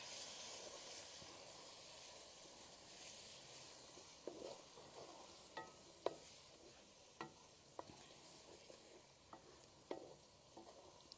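Faint sizzling of an onion, tomato and spice masala frying in oil in a kadhai while it is stirred, with the spoon knocking against the pan several times in the second half.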